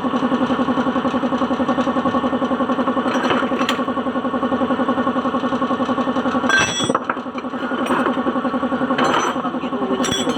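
Suzuki DA16's engine idling steadily, with a few sharp metallic clinks of tools or parts over it, one a little past halfway.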